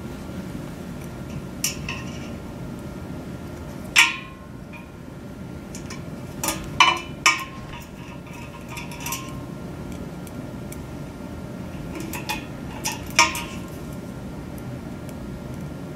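Sharp metallic clinks and taps of a screwdriver and set screws against the antenna's feed and mounting bracket, irregular and spread out, the loudest about four seconds in with a short ring, a quick cluster around seven seconds and a couple more near thirteen seconds, over a steady low hum.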